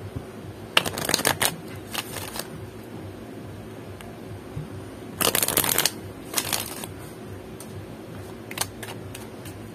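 A deck of oracle cards being shuffled by hand, in several short bursts of cards rustling and riffling against each other. The longest and loudest burst comes about five seconds in, and a few light taps of cards follow near the end.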